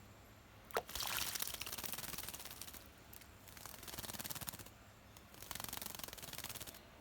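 A bird bathing in a shallow bird bath, beating its wings in the water in three splashing bouts of one to two seconds each. The bouts are preceded by a sharp knock.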